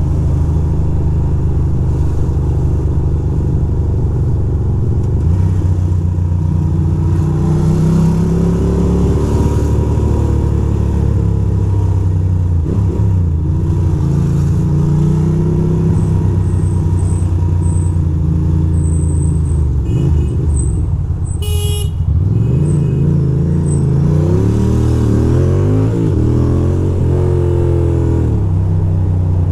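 2006 Ducati Monster 620's air-cooled L-twin engine running as the bike rides through city traffic, its pitch rising and falling several times as it accelerates and eases off. A brief sharp high sound cuts in about three-quarters through.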